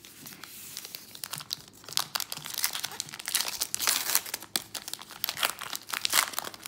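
Trading-card pack wrapper being torn open and crinkled by hand: a run of crackling rustles that grows busier midway and flares again near the end.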